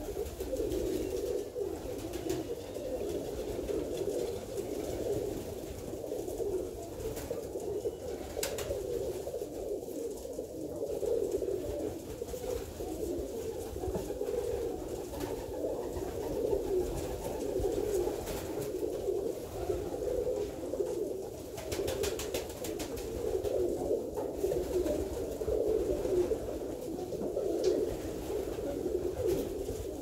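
Several Alföldi-Körösi tumbler pigeons cooing at once, their low calls overlapping into a continuous, unbroken chorus.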